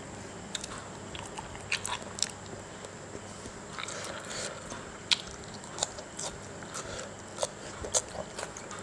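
A person biting and chewing a spicy Mama instant-noodle salad up close, with irregular sharp mouth clicks and smacks.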